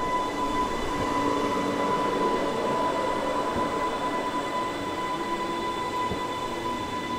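Running noise inside a Class 484 electric train carriage in motion: a steady rumble of wheels on track with a steady high whine above it.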